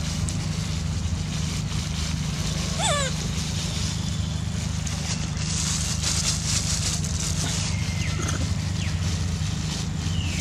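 Plastic bag crinkling for about two seconds a little past the middle, over a steady low hum. A short falling squeal sounds about three seconds in.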